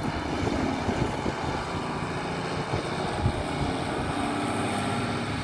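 New Holland TM190 tractor's six-cylinder diesel engine running steadily as the tractor drives past on the road.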